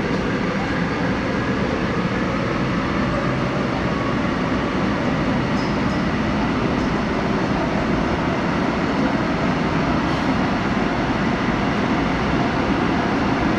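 Seoul Metro Line 9 9000-series electric train running through a tunnel, a steady, unbroken rumble and rush of wheels and track.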